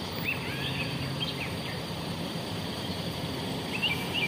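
Steady outdoor background noise with small birds chirping: a few short high chirps about a second in, and a quick series of them near the end.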